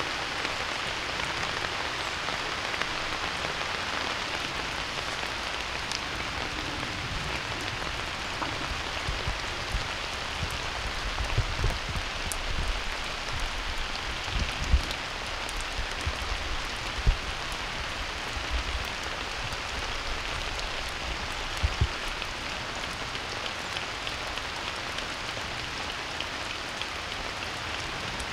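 Steady rain falling, an even patter throughout, with a few short low thumps in the middle.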